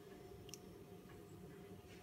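Near silence: a faint steady hum, with one faint click about half a second in.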